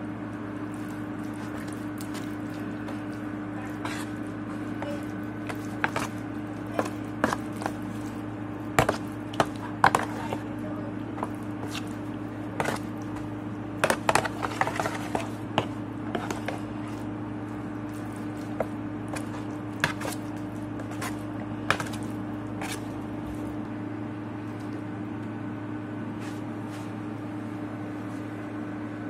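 A spoon stirring thick baked beans with ground turkey in a disposable aluminium foil pan: scattered clicks and scrapes of the spoon on the foil with wet squishing, busiest about a third and halfway through. A steady low hum runs underneath.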